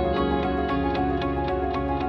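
Background music: sustained pitched notes over a steady beat of about four strokes a second.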